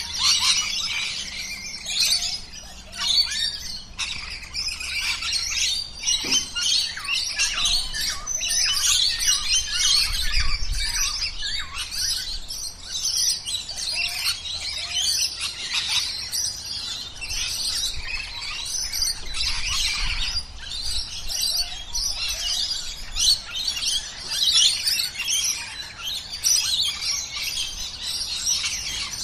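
A flock of rainbow and scaly-breasted lorikeets chattering and screeching, many short shrill calls overlapping without a break.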